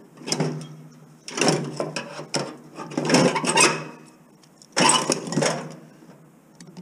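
Tin snips cutting through a microwave's sheet-metal chassis and wiring to free the transformer, in four bursts of about a second each.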